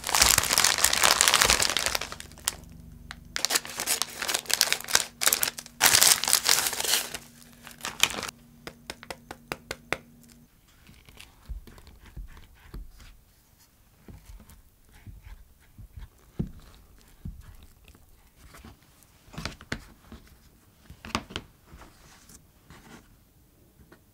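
Plastic packaging of frozen pie sheets crinkling and tearing open in three loud bursts over the first seven seconds or so. After that come quieter sharp clicks and taps of a knife cutting the frozen pastry sheet on a board.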